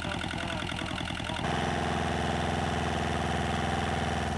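Volvo Penta 2002 two-cylinder marine diesel running steadily on a test stand, a noisy, clunky old diesel running smoothly. About a second and a half in, the sound abruptly gets louder.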